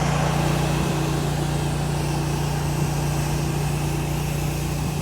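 Engine-driven 8 gallon-per-minute pressure washer running steadily under load: an even hum with a hiss over it that does not change.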